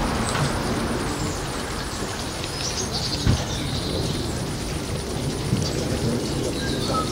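Outdoor ambience: a steady background rush with faint bird chirps, and a single thump about three seconds in.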